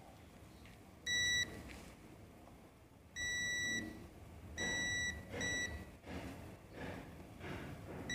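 Digital multimeter on its continuity range beeping as a test probe is touched to points on an ECM circuit board: four short, steady, high beeps, with a fifth starting near the end and held, each beep signalling continuity through the part being probed. Faint taps and scratches of the probe tip come between the beeps.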